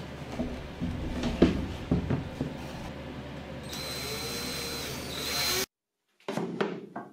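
A wooden drawer box is knocked about as it is handled. A cordless drill/driver then runs with a high whine for about two seconds, driving screws through pocket holes to attach the drawer's MDF front. After a sudden cut, a few light knocks sound as a metal square is set down on the plywood.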